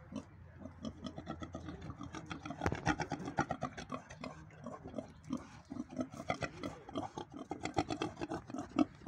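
Black pot-bellied pig grunting in a steady run of short grunts, several a second, as it comes up close with its snout, getting busier after the first couple of seconds.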